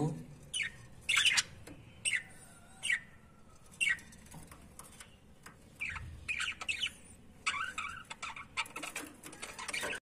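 Budgerigars calling with short, sharp chirps. A few single calls are spaced out over the first four seconds, then a busier run of calls comes from about six seconds in.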